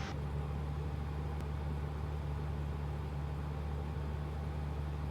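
Steady cabin drone of a 1965 Cessna 172G's six-cylinder Continental O-300 engine and propeller at reduced power, descending on short final.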